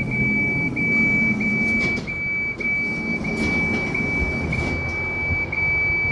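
Lift's electronic buzzer sounding one high, steady tone with tiny breaks about every two-thirds of a second, the alarm for a door held open, over the low hum of the lift car.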